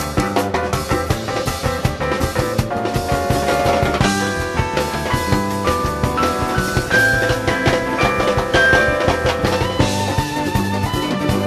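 A full Latin-rock band playing live: drum kit and hand percussion over bass and keyboards, with a lead line of long held notes that climbs step by step in pitch in the middle.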